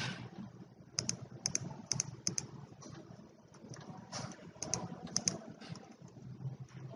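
Computer keyboard typing: short runs of a few keystrokes at a time, with brief pauses between the runs.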